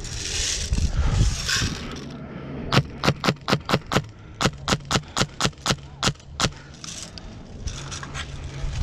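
An airsoft gun firing a rapid string of about eighteen sharp single shots, about five a second, with a brief pause after the first seven. A rustle of movement comes before the shots.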